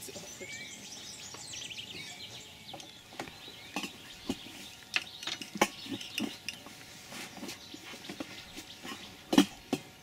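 Small birds chirping for the first few seconds, then a scatter of short, sharp clicks and knocks at irregular intervals, the loudest near the end.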